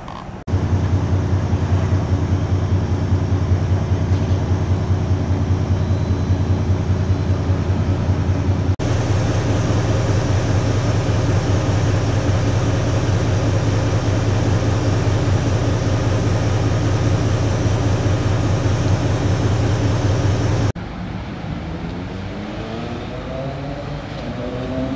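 Locomotive running at a railway station: a loud, steady low drone with a humming pitch, in cut-together clips. Near the end a quieter clip has several tones that rise together as a train picks up speed.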